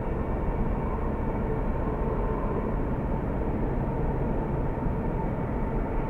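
Steam train running steadily: an even noise, heaviest in the bass, with faint steady tones above it and no distinct beats.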